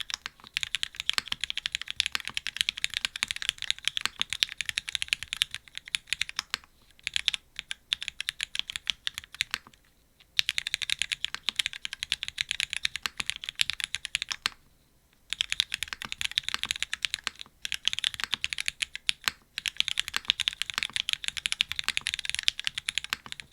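Fast typing on a custom mechanical keyboard with linear Cherry MX Black switches, an aluminium plate and GMK keycaps: dense runs of keystrokes with brief pauses between bursts.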